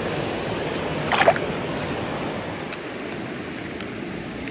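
Shallow stream water running steadily, with one brief splash about a second in. After about three seconds the water sound softens and a few faint taps are heard.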